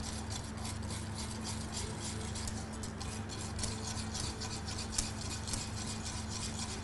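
Wire whisk beating a pale, runny mixture in a pot, with quick, regular scraping strokes of the whisk against the pot.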